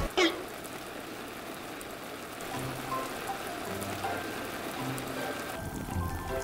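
Water jets of a splash-pad sprinkler pool spraying steadily and pattering down onto the pool water and grass, with soft background music. A short falling whoosh comes right at the start.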